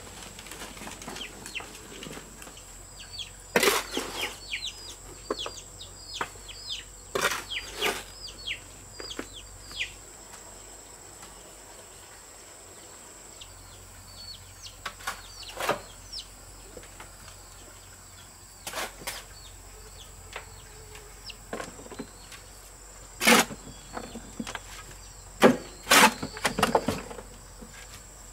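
About ten sharp knocks of hard objects, scattered at irregular intervals and loudest near the end. Between them, birds chirp in short falling notes, and a faint steady high tone runs underneath.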